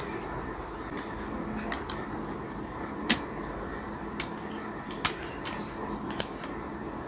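A handful of light clicks and taps as small smartphone parts are handled and fitted together, the sharpest coming about once a second in the second half, over a faint steady hiss.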